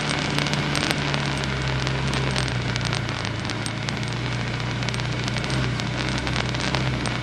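Off-road vehicle engine running at low speed with a steady low hum that settles a little lower about two and a half seconds in, under a constant patter of sharp clicks and crackles.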